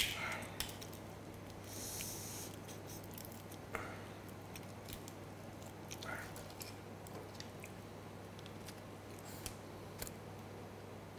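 Grilled prawn shell being cracked and peeled apart by hand: a few sparse, quiet clicks and crackles, with a short hiss about two seconds in. A faint steady low hum runs underneath.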